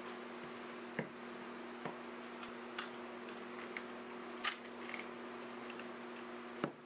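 A few light, sharp clicks and taps as a plastic quartz clock movement is handled and fitted onto an oak slab, the loudest about four and a half seconds in and another near the end, over a steady low hum.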